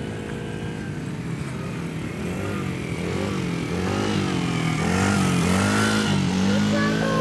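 Small engine of a youth ATV (kid's quad) running on a dirt track, its pitch rising and falling over and over as the throttle is worked. It grows louder as the quad comes closer, loudest a bit past halfway.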